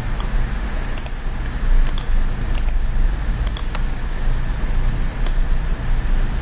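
Sharp clicks of a computer mouse, about ten of them, several in quick pairs, between about one and four seconds in, with one more near five seconds, over a steady low hum and hiss.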